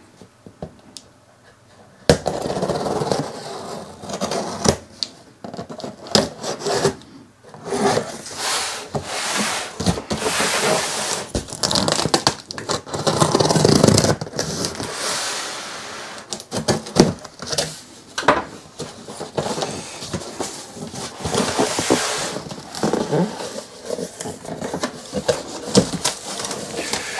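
A large cardboard box being handled and opened: cardboard scraping and rustling against itself and the desk, with frequent knocks and taps as the box is turned and tipped over. It starts about two seconds in.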